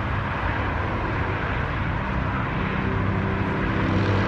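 Steady rush of heavy freeway traffic, the tyre and engine noise of many vehicles blending together, with a low engine hum joining about halfway through.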